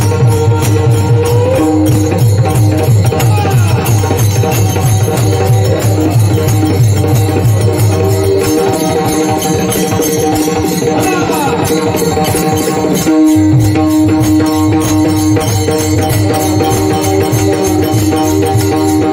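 Mridang (pakhawaj) drumming with many small hand cymbals (taal) ringing, under group devotional singing. The deep bass drum strokes drop out for a few seconds around the middle of the passage and then come back.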